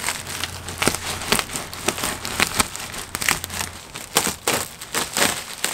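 Clear plastic shipping wrap crinkling and tearing in irregular bursts as it is slit with a knife and pulled apart by hand.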